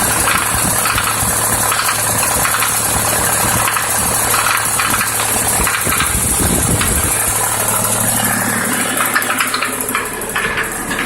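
ZMZ-51432 four-cylinder turbodiesel idling with a steady ticking knock. The knock appeared once the engine warmed up, after it had run quietly from cold.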